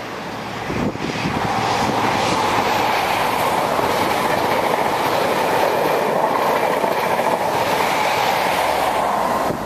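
A train passing, the steady noise of its wheels on the rails rising about a second in and stopping suddenly near the end.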